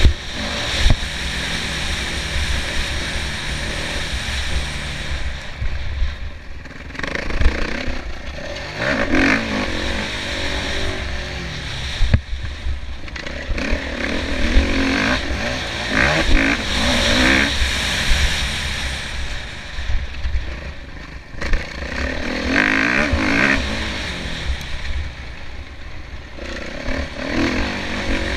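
Kawasaki KX450F's single-cylinder four-stroke engine revving hard and falling off again and again as the bike is ridden round a motocross track. The throttle opens and closes every few seconds, with short lulls and sharp surges.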